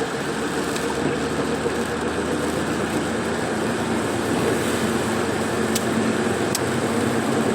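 A car driving along the road, heard from inside the cabin: a steady mix of engine and tyre noise.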